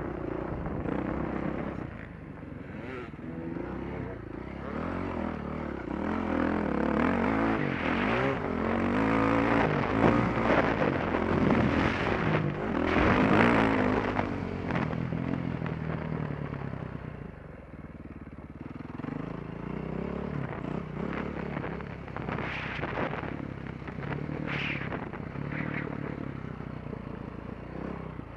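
Dirt bike engine heard close up from the rider's helmet, revving up and easing off again and again as it is ridden round a motocross track; it is loudest about eight to fourteen seconds in and drops back for a moment later.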